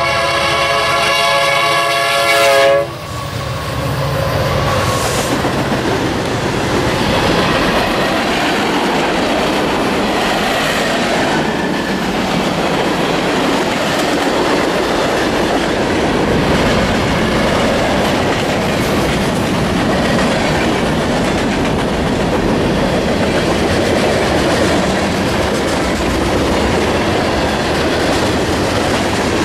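Freight train horn sounding a multi-note chord at a grade crossing, cutting off about three seconds in as the Union Pacific SD90/43MAC locomotives pass. Then a long string of tank cars rolls by fast, with a loud steady noise of wheels running on the rails and clickety-clack over the rail joints.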